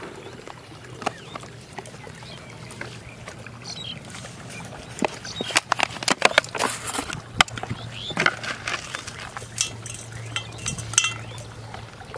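Scattered clicks, taps and clinks of handling a plastic container and a steel bowl while powder is sprinkled onto cooked rice, busiest in the middle of the stretch, over a steady low hum and a few short chirps.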